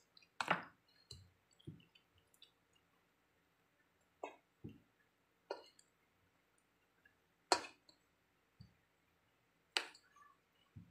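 A white plastic spatula stirring chicken pieces through thick batter in a stainless steel bowl: faint, irregular wet squelches and light clicks as the spatula knocks the bowl, about a dozen in all, with a louder knock near the start and another past the middle.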